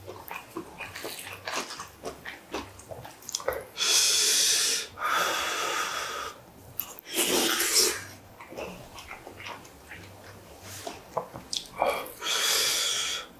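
Close-miked eating sounds: a man chewing, with small clicks of a wooden spoon, and four loud breathy puffs of about a second each as he blows on spoonfuls of hot Korean steamed egg.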